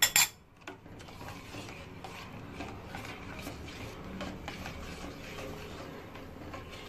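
A metal spoon clinks sharply once at the start, then stirs and scrapes around a stainless steel pot of hot milk as custard-powder mixture is slowly poured in and mixed.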